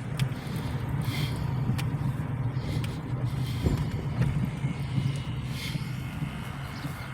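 Car engine and road noise heard from inside the moving car's cabin: a steady low drone with a few faint clicks over it.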